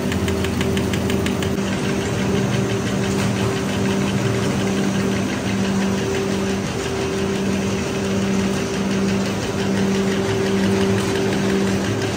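Drinking-straw production machinery running: a steady electric hum from the extrusion line, with a rapid, even ticking from the rotary cutter chopping the plastic tube into straws for about the first second and a half.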